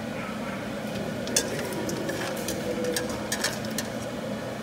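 Metal tongs clinking sharply against a stainless steel wok and plate as cooked slipper lobster pieces are lifted out, a series of short irregular clicks, over a steady low hiss.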